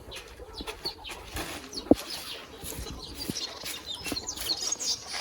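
Chickens clucking and chirping, with scattered small clicks and one sharp knock about two seconds in.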